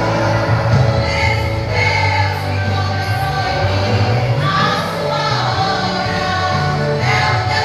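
Live gospel worship music: a vocal group singing over instrumental accompaniment with a steady bass line.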